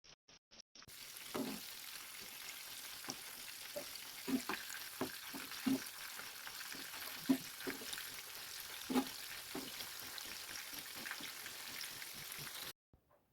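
Breaded chicken pieces frying in hot oil: a steady sizzle with scattered crackles and pops. It starts about a second in and cuts off suddenly near the end.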